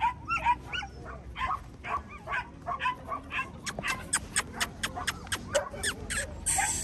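Dogs yipping and whining in short, high cries, several a second, with a brief hiss of noise near the end.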